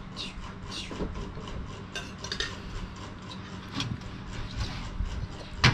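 Scattered light clicks and clinks of eating utensils against plates and a metal tray, with one sharp, louder knock near the end, over a low steady hum.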